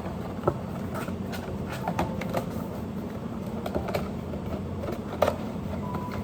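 Scattered light clicks and taps, some with a brief ringing clink, over a steady low hum. Two sharper clicks stand out, about half a second in and about five seconds in.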